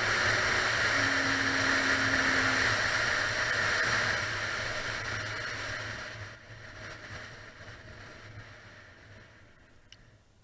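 Honda Nighthawk 750 cafe racer's inline-four engine running steadily, then fading away over the last six seconds.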